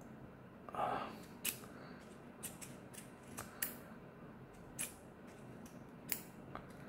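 The push-button click mechanism of a retractable fountain pen (Endless Creator) being pressed again and again, giving about ten light, sharp clicks at uneven intervals. The mechanism is hit and miss: it seems to work sometimes and not others.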